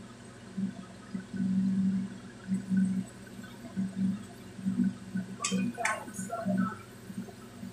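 Green beans in coconut-milk sauce simmering in a wok, bubbling with low, irregular gurgles. A little over five seconds in, a spatula clinks against the wok twice as it stirs.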